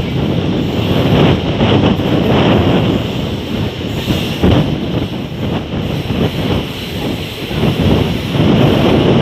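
A moving train running along the track, a loud steady rumble with uneven gusts of wind on the microphone.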